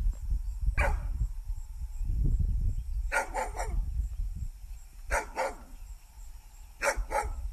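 A dog barking in short, separate barks: a single bark about a second in, then clusters of two or three with pauses between.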